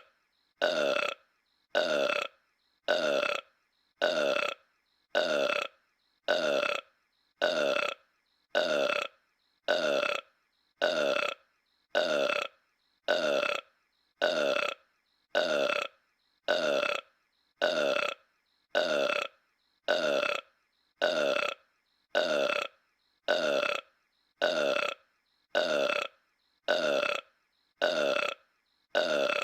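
Homer Simpson's cartoon burp, the same short belch clip repeated about once a second with silence between each.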